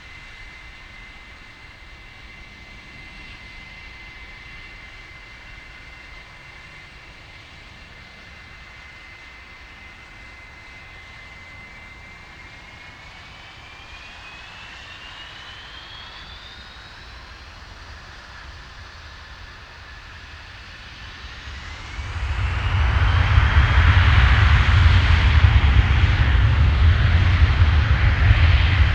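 Business jet's turbofan engines with a steady high whine that rises in pitch as they spool up. About 22 seconds in it gives way to a loud, sustained jet roar with deep rumble as the engines reach high thrust.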